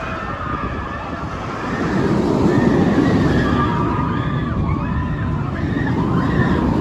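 Giant inverted boomerang roller coaster running: a loud rushing rumble that swells about two seconds in, with voices crying out over it.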